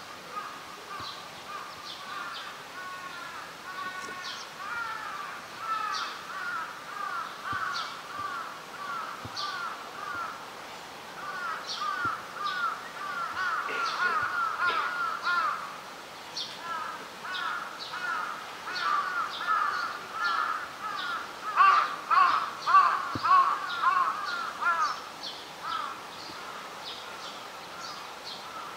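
Birds calling outdoors: many short, harsh calls in quick overlapping runs, with a few higher chirps scattered among them. They are busiest a little before halfway and again about three-quarters through.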